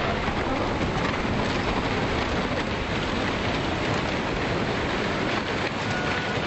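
Tsunami floodwater rushing and churning through a street, a steady, unbroken rushing noise.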